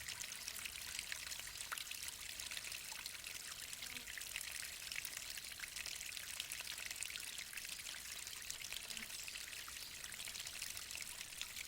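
Water of a mountain waterfall falling and splashing onto rock: a steady, hissing rush full of small splashes.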